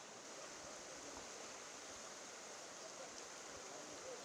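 Faint, steady hiss of outdoor background noise, with no distinct event standing out.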